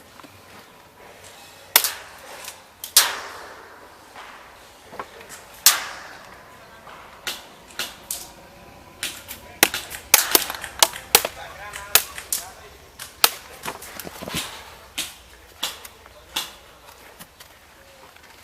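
Airsoft guns firing sharp single pops, the loudest with a short echo after them. The shots come scattered at first, then turn into a dense exchange of fire from about ten seconds in to about fifteen.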